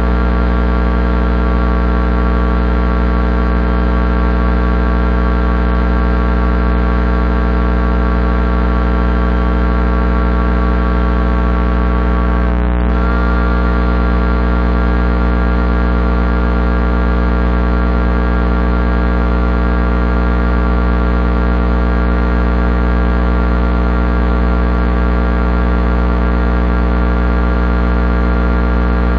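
Electrical transformer humming steadily: a low mains-frequency drone with a dense stack of buzzing overtones above it, unchanging in pitch and level.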